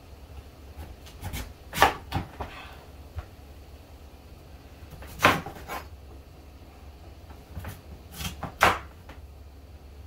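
Knife knocking on a wooden cutting board as yam is cut into pieces: a few sharp knocks a few seconds apart, three of them louder, with lighter taps between.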